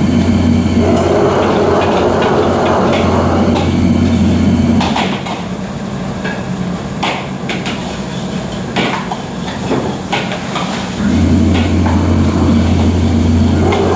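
Commercial wok range burner running with a steady low rumble, cut off about five seconds in and back on about eleven seconds in. Sharp metal clanks of a ladle against the wok and pans come in between.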